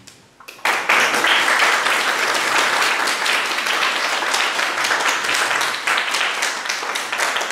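Audience applauding. The clapping breaks out about half a second in and goes on as a dense, steady applause.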